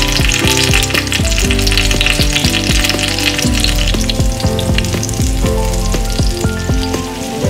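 Whole boiled new potatoes sizzling in hot vegetable oil in a stainless steel frying pan. The sizzle is loudest in the first few seconds, with background music throughout.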